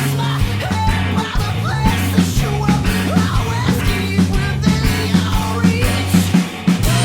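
Rock band playing at full volume, with electric guitar, bass guitar and drums: held bass notes under regular drum hits.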